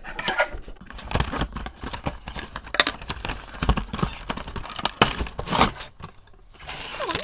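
A cardboard Funko Pop box being opened and its clear plastic insert pulled out: rustling and crinkling of cardboard and plastic, with irregular clicks and taps.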